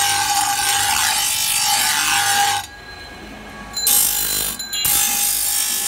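Electric bench grinder's abrasive wheel grinding rust off a curved steel boti blade, a steady grinding hiss with a whine running through it. The grinding drops away for about a second a little past the middle, then starts again.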